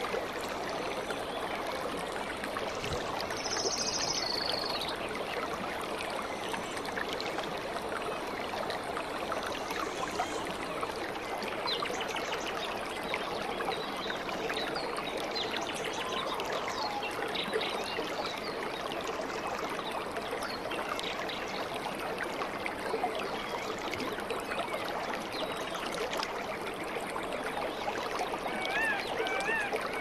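Small cascading waterfall spilling over rock ledges into a pool: a steady rush and splash of running water. A brief high chirp sounds about four seconds in, and short repeated chirps come near the end.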